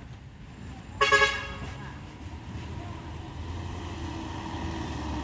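A short vehicle horn toot about a second in, followed by a truck engine running low and growing slowly louder as the truck approaches.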